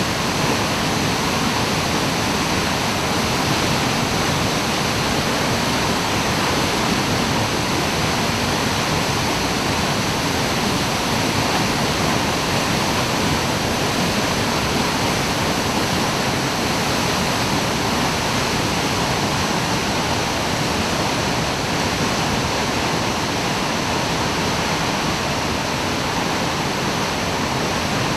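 A 30 m straight-drop waterfall pouring steadily, a loud, even rush of falling water.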